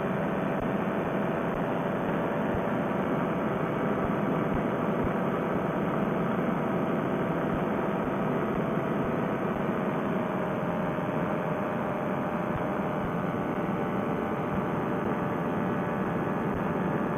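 Paramotor trike's engine and propeller running steadily in flight, a continuous drone whose pitch eases slightly lower about halfway through. It sounds muffled and narrow, as picked up by the pilot's Bluetooth headset microphone.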